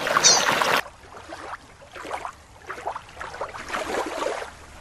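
Rushing creek water with a short high chirp, cut off suddenly under a second in. Then faint underwater ambience: soft, irregular bubbling and crackle.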